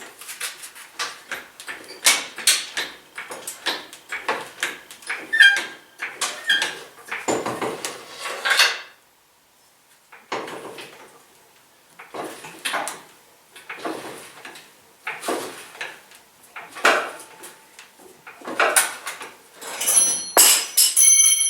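Metallic clanks and clicks of a jack being set under the truck and worked to lift the front end, in clusters of sharp knocks with a brief pause partway through. Near the end, metal pieces clink and ring.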